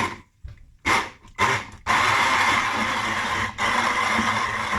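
Electric blender pulsed in several short bursts, then running continuously at a steady whine while blending raw carrot, with one brief stop about three and a half seconds in.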